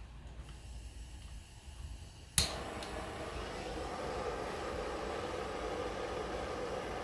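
Handheld gas blowtorch lighting with a sharp click a little over two seconds in, then burning with a steady hissing flame.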